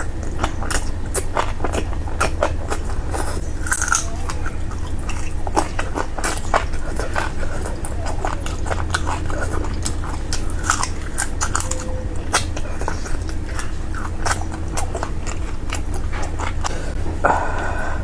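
Close-miked chewing and biting while eating curry, many short wet mouth clicks and smacks over a steady low hum.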